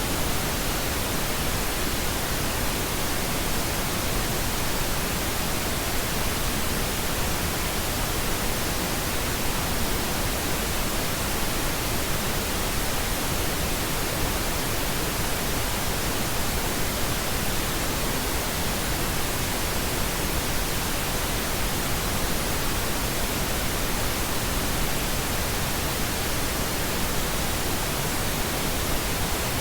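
Steady pink noise, an even, unchanging hiss across the whole range, generated as a sleep and relaxation sound.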